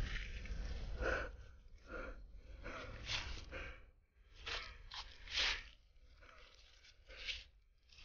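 Footsteps crunching through dry fallen leaves, a dozen or so irregular steps that thin out near the end. A low wind rumble on the microphone runs under the first half.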